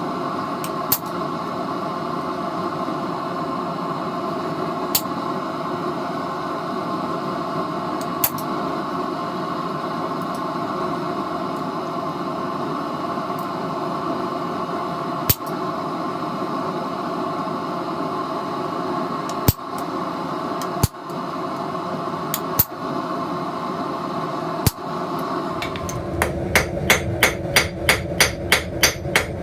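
A steady mechanical hum with occasional single metallic clinks. About 26 seconds in, a fast run of hand-hammer blows on steel at the anvil begins, about four blows a second, forging thin leaf stock.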